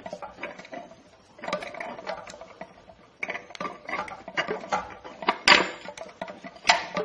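Steel output shaft of a Nissan RE4R01B automatic transmission being twisted left and right and pushed forward, its splines and park gear clicking and clattering against the planetary as they find their mesh. The clicks come irregularly, with two louder metal clacks near the end.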